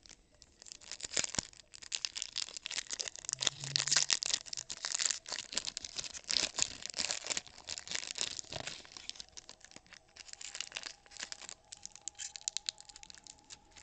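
Foil trading-card pack wrapper being torn open and crinkled by hand, a dense crackling that thins out in the last few seconds.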